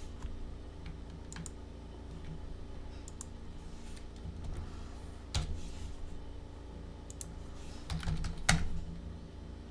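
Computer keyboard typing: scattered key presses, with two louder key strikes about five and a half and eight and a half seconds in, over a low steady hum.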